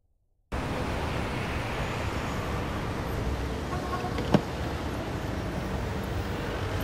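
Steady street-traffic and car-engine noise that starts abruptly about half a second in, with a single sharp knock a little past four seconds.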